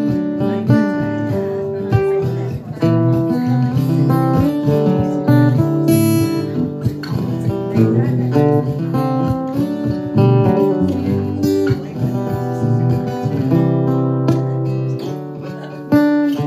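Martin steel-string acoustic guitar played solo: chords strummed and picked in an instrumental passage, changing every second or so.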